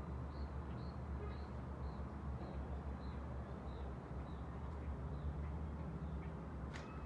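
Steady low rumble of a city heard from high above, with a small bird chirping a short high note about twice a second that fades out after a few seconds. A sharp click comes near the end.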